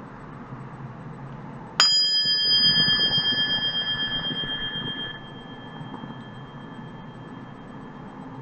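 A bell struck once, ringing with a wavering, pulsing tone that fades for about three seconds before being cut off sharply. A faint high tone lingers afterwards over a steady low hiss.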